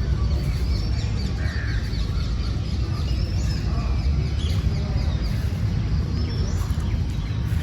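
Many birds chirping and calling in short, overlapping notes, over a steady low rumble.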